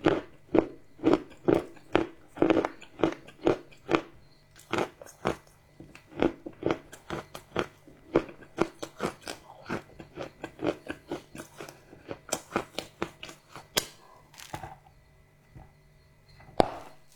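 Crunchy chocolate being chewed: a steady run of sharp crunches, about two or three a second, that eases off briefly near the end before one louder crunch.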